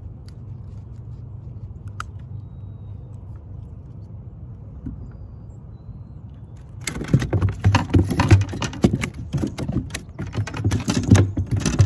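A bass thrashing in hand while being unhooked: about seven seconds in, a flurry of irregular slaps and knocks starts, over a low steady rumble.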